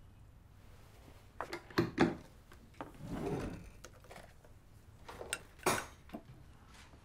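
Kitchen handling sounds: a plastic blender jar set down on its base, with a few sharp knocks and clunks and a short rustle in between.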